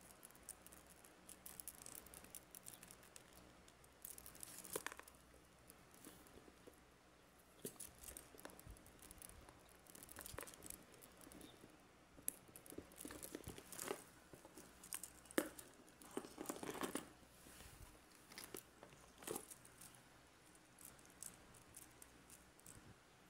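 Faint handling noises: scattered small clicks, taps and rustles as a phone charm's cord and plastic chain links are fiddled onto a smartphone, busiest a little past the middle.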